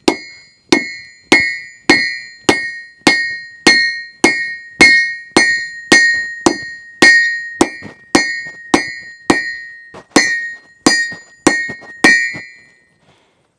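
Hand hammer striking red-hot half-inch square steel bar on an anvil, drawing it out and rounding it. Steady blows a little under two a second, each leaving a bright metallic ring from the anvil, stopping about a second before the end.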